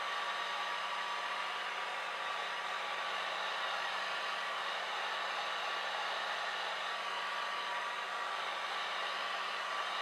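Small handheld hair dryer running steadily, its rushing air carrying a constant motor whine.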